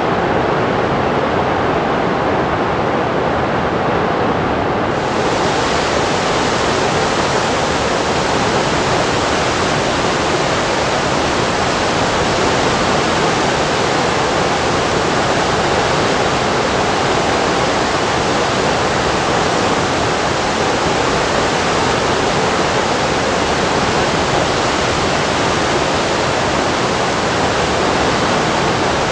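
Steady, loud rush of muddy floodwater pouring out of a breached dam and draining its reservoir. It turns hissier about five seconds in.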